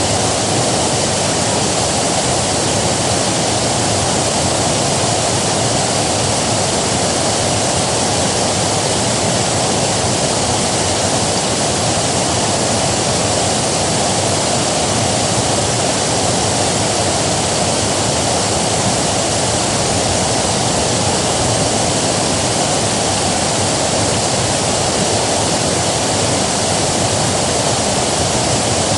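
River water rushing, a steady, unbroken wash of flowing water.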